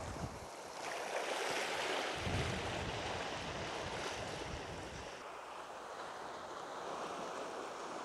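Sea waves washing and hissing against a rocky shore, with wind buffeting the microphone in a few low gusts.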